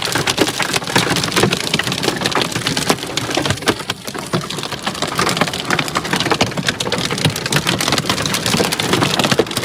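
Heavy rain falling on a hard surface: a dense, steady patter of countless drops.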